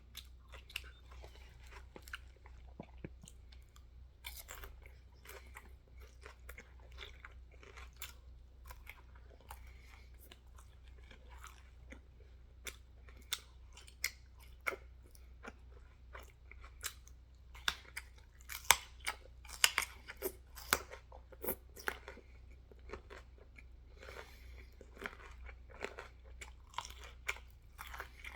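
Loud close-up chewing of food, with many crunching bites and a run of sharper, louder crunches a little past the middle.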